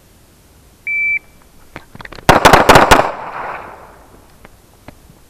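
Shot timer gives one short beep, and about a second and a half later a quick string of 9 mm Smith & Wesson M&P pistol shots is fired, all within under a second, with echo trailing off after them.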